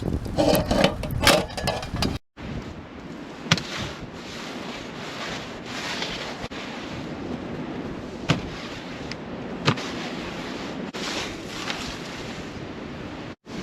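Strong storm wind blowing steadily, with a few sharp knocks over it.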